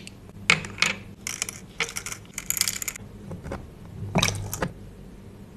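Tiny ceramic bowls clinking, then dry grains rattling and pattering into a small ceramic bowl. About four seconds in there is a short rush of water from a miniature tap into the bowl.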